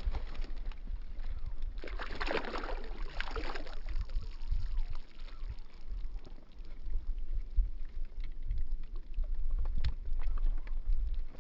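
Water splashing and sloshing as a hooked fish is played in at the pond's edge, loudest about two to three and a half seconds in, over a steady low rumble.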